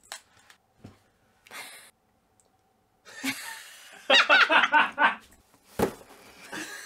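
A woman laughing out loud, after a few short breaths and soft clicks; a single thump near the end.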